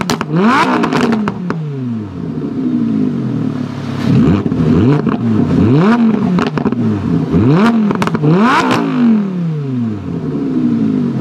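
Lamborghini Huracán LP610-4's V10 engine revving hard again and again, its pitch climbing and dropping about ten times. Sharp cracks come from the exhaust at several points between revs.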